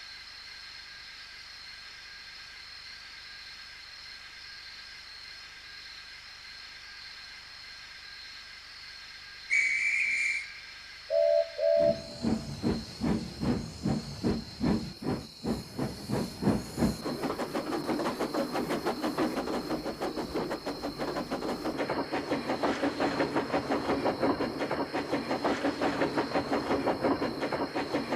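Steam locomotive standing with a steady hiss of steam. A short high whistle sounds, then two brief low whistle toots, and the engine starts off, its exhaust chuffs quickening steadily as it gathers speed.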